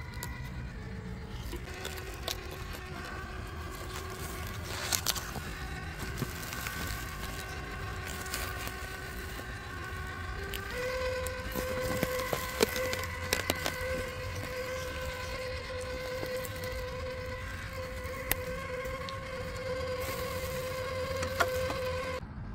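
Electric whine of an RC crawler's brushless motor and geared drivetrain running at steady throttle, the whine stepping up in pitch about halfway through. Scattered sharp clicks and knocks of the truck over rough ground accompany it.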